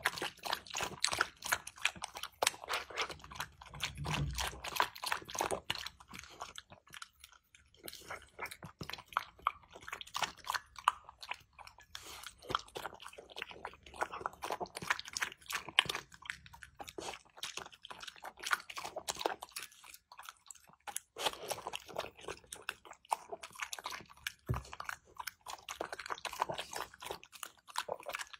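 A dog eating from a bowl: rapid, irregular wet clicks and crunches as it chews pieces of food and laps at the liquid, with a few short pauses.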